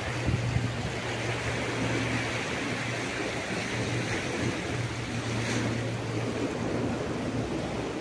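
Steady sea surf with wind rumbling on the microphone.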